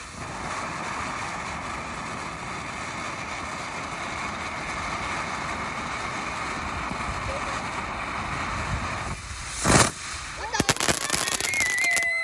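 Fireworks: a steady hissing noise for about nine seconds, then one loud bang and a quick burst of crackling pops near the end.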